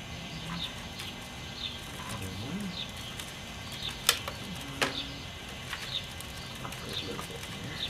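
A songbird chirping repeatedly, short high downward notes every half second to a second, with two sharp clicks about four and five seconds in.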